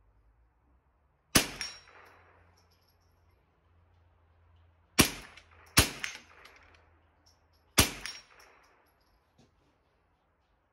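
Four shots from a .22 LR semi-automatic rifle (Ruger 10/22). One comes about a second in, then two in quick succession, then a last one two seconds later. Each shot has a short ringing tail.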